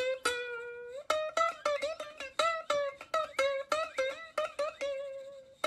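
Background music: a plucked-string melody of quick, short notes, some bending in pitch, with a couple of longer held notes.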